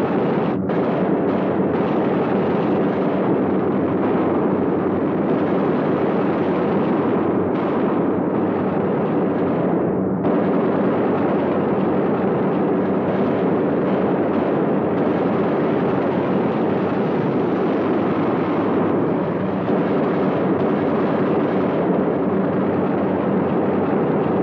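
A steady, dense roar of bomber engines mixed with a continuous clatter of machine-gun fire.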